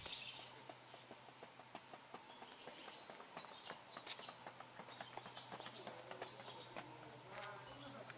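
Footsteps on cobblestone paving, a run of small irregular clicks, with a few birds chirping.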